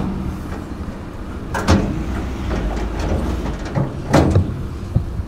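Steel lid of a truck trailer's spare-wheel box being lowered by its handle, with two metal clanks, about a second and a half and about four seconds in, over a steady low hum.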